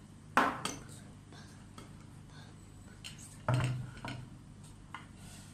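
Kitchenware being handled: a spoon and dishes knocking and clinking. There is a sharp knock about half a second in, a heavier knock at about three and a half seconds, and a few lighter clicks between.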